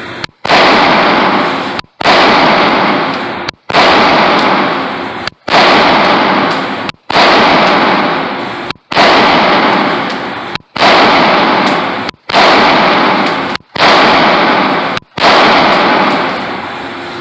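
Walther PPQ pistol fired about ten times at a steady pace, roughly one shot every second and a half. Each shot is loud and rings out with a long echo in an indoor range, and the recording drops out for an instant at each shot.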